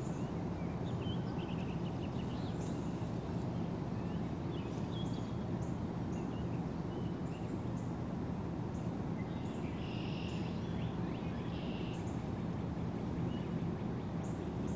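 Outdoor ambience: a steady low hum and background noise, with scattered short bird chirps and calls and a busier spell of birdsong about ten seconds in.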